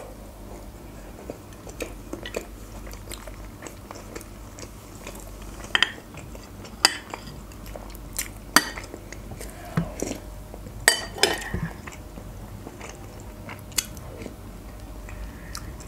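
Close-miked chewing of a soft burger bun, then a metal spoon clinking against a glass bowl of chicken soup, several sharp clinks from about six seconds in as spoonfuls are scooped and eaten.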